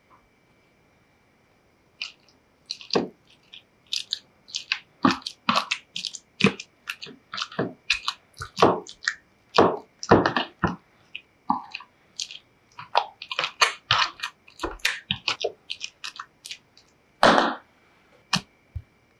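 Boiled potato chunks being mashed by hand with a potato masher in a metal loaf pan: irregular wet squishing strokes, two or three a second, starting about two seconds in and stopping near the end after one louder stroke.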